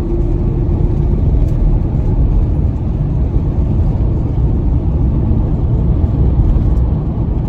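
Steady low road rumble of a van driving, heard from inside the cabin.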